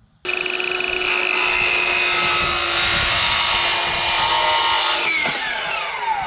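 Electric power saw starting suddenly and cutting into old barn timber, which may hold nails, for about five seconds. On release the motor winds down with a falling whine.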